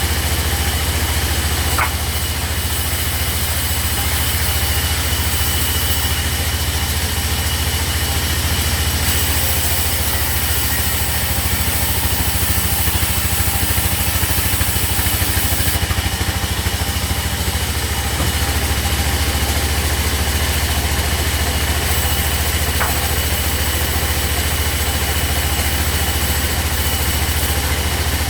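Sawmill machinery running steadily with a low, evenly pulsing engine-like drone, not cutting.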